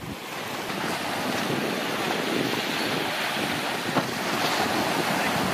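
Sea waves washing over a surfaced submarine's low deck, with wind buffeting the microphone. There is a brief knock about four seconds in.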